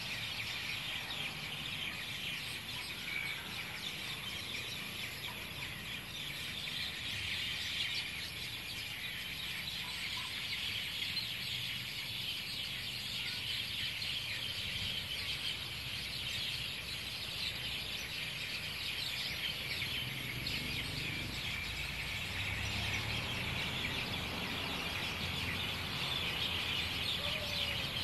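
Dense, continuous night chorus of many small calling animals, a steady high-pitched shimmering trill that never breaks, with a faint low rumble underneath.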